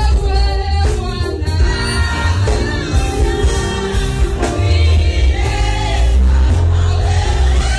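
Live Kalenjin gospel song: a lead woman's voice singing with a group of women's voices joining in, over loud amplified backing with heavy bass.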